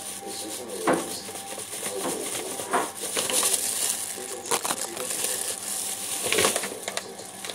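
Thin plastic bag crinkling and rustling as it is handled in plastic-gloved hands, with several sharp crackles.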